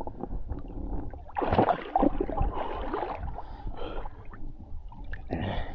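Lake water splashing and sloshing around a swimmer, with a few louder splashes in the middle.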